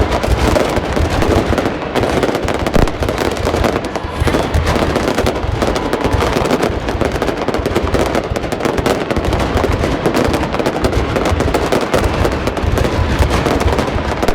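Fireworks going off in a dense, continuous barrage: rapid bangs and crackling without a break.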